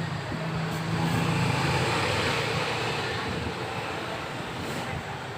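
Steady low engine-like hum with a hiss over it, swelling about a second in and then slowly fading, like a motor vehicle passing by.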